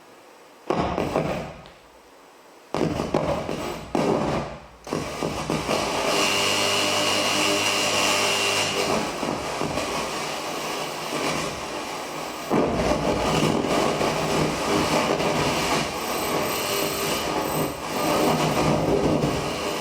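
Bowed daxophone, a wooden blade instrument, played with rasping, scraping strokes. Short separate strokes come in the first few seconds, then a continuous scraping texture, with a steady pitched tone held from about six to nine seconds in.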